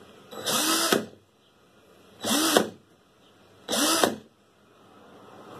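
DeWalt DCD771C2 20 V cordless drill/driver run with no load in three short trigger pulls. Each time the motor and empty chuck whine up in pitch and wind back down.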